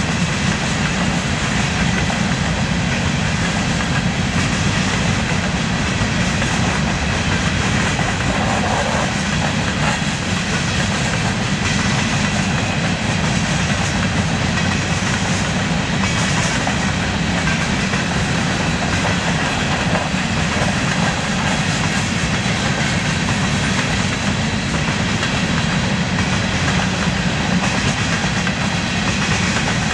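Covered hopper cars of a BNSF unit grain train rolling past steadily: a continuous rumble of steel wheels on rail.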